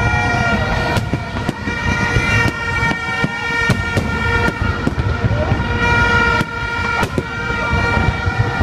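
Aerial fireworks going off in rapid succession: a string of sharp bangs and crackles over a deep, continuous rumble. A steady high tone holds underneath the whole time.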